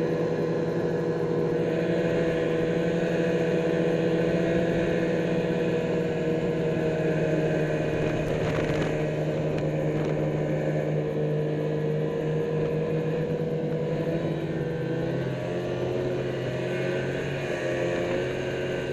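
Snowmobile engine running steadily under way, its pitch dropping somewhat about fifteen seconds in as it eases off.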